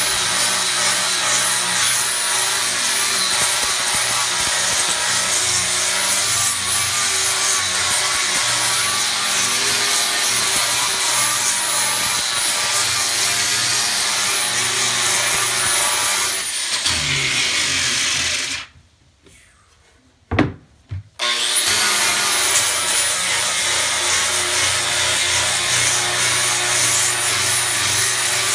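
Right-angle power sander with a sanding disc running against a wooden bourbon barrel head: a steady high motor whine over the rasp of the disc on the wood. About two-thirds of the way through it winds down and stops, two short knocks sound in the quiet, then it starts again, its whine rising back to full speed.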